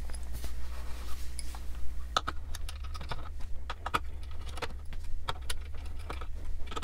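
Small Phillips screwdriver backing tiny screws out of a metal heatsink plate: light, irregular metallic clicks and ticks that grow more frequent about two seconds in.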